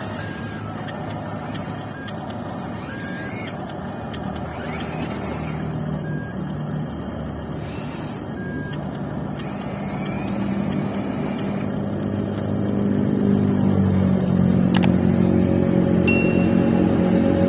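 Radio-controlled model construction machines (excavator and dump truck) at work: a steady engine-like drone with short beeping tones and brief rising whines. It grows louder about two-thirds of the way in.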